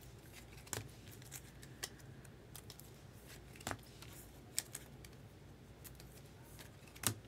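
Faint, scattered clicks and light scrapes of foil trading cards being handled and slid into rigid clear plastic top loaders; the sharpest click comes near the end.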